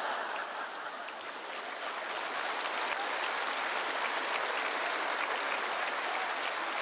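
Large theatre audience laughing and clapping; the laughter gives way to steady, even applause after the first couple of seconds.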